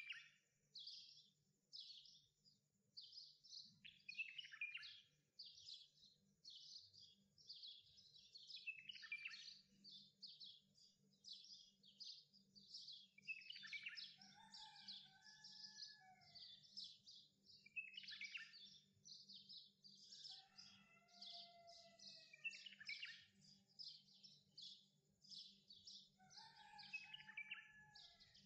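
Faint bird chirping: short high chirps repeating about twice a second, with a few lower warbling calls in the middle and near the end.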